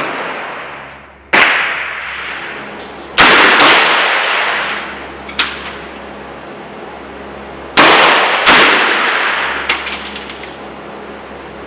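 Uberti Navy .36 black-powder revolvers firing: five sharp shots, some in quick pairs, each with a long ringing tail. A few faint clicks fall between them.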